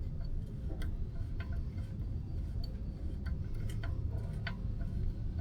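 Light metallic clicks and ticks at irregular intervals from hand work on the front wheel hub's spindle nut, over a steady low background rumble.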